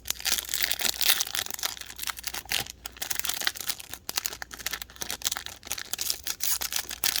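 Foil wrapper of a trading card pack being torn open and crinkled, a dense run of sharp crackles.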